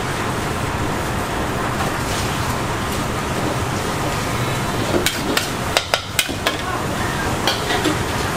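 Pad thai being stir-fried in a wok over a gas flame: steady sizzling and burner noise, with the metal spatula scraping the pan. About five seconds in, the spatula gives a quick run of sharp clacks against the wok.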